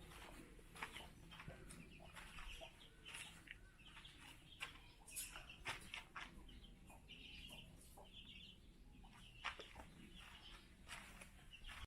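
Faint calls of farm birds: many short notes in an irregular series, with scattered clicks.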